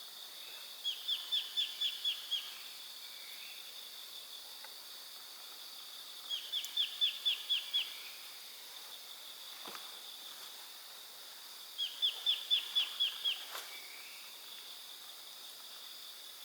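A bird sings the same short phrase of about seven quick repeated notes three times, roughly every five and a half seconds. Behind it runs a steady high-pitched drone of insects.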